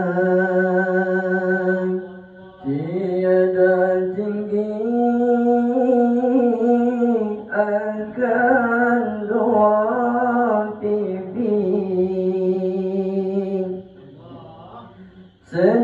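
Male voice chanting a Mawlid devotional song in Arabic through a microphone and PA, in long held, melismatic notes with slow pitch glides. The chant breaks off briefly about two seconds in as one singer hands over to another, and drops quieter for a moment near the end before the next phrase starts.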